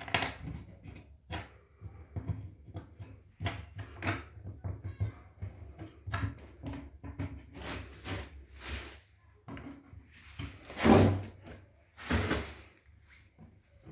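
Handling on bare wooden floorboards while fitting a self-tapping screw into a pre-drilled hole: irregular knocks, taps and scrapes, with two louder rasping scrapes about eleven and twelve seconds in.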